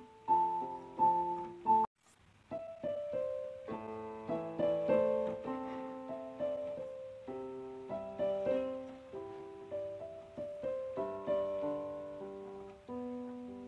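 Background piano music, a melody of struck notes that break off for a moment about two seconds in.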